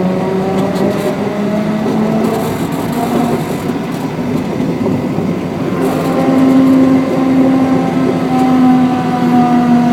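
Diesel engine of a 15-inch gauge miniature locomotive running under load as the train climbs a grade, with wheels rumbling on the rails. About six seconds in the engine revs up, getting louder and higher in pitch, then holds steady.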